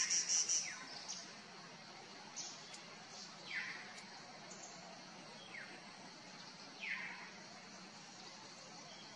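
Forest bird calls: a rapid, high chatter that ends about half a second in, then a short downward-slurred whistle repeated several times, every second or two.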